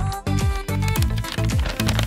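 Background music with a steady beat and a repeating bass line.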